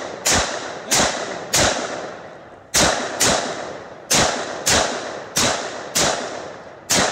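AR-15 semi-automatic rifle firing about ten shots one trigger pull at a time, at uneven gaps of roughly half a second to a second. Each shot is a sharp crack followed by a short echo that dies away.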